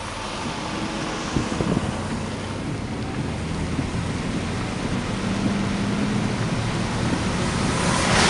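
Steady rushing noise of a vehicle on the move, with road rumble and wind, growing slowly louder, with a brief louder surge near the end.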